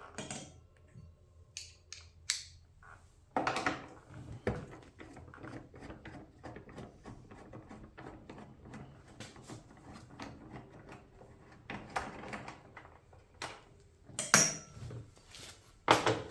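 Hand tools and metal parts clinking, clicking and knocking in an irregular series, with the loudest knocks a few seconds in and near the end.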